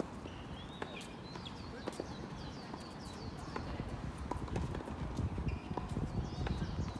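Sharp, irregular hits and footsteps of a mixed-doubles racket-sport rally, with short squeaks, busier and louder in the second half.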